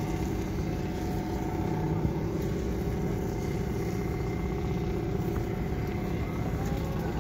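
An engine running steadily, a constant low hum with a few held tones and no change in pitch.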